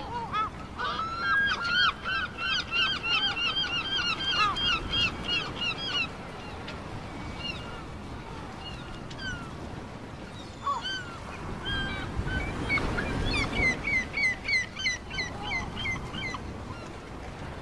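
Gulls calling in long runs of quick, repeated yelping notes, about four or five a second, in two bouts, the second higher-pitched.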